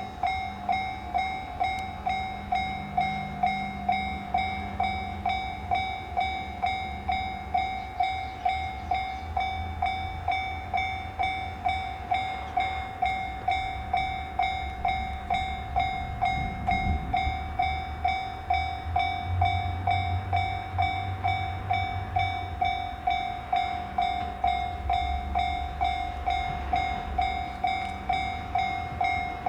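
Japanese railway level crossing warning bell ringing steadily, about two strikes a second, over the low rumble of a passing train.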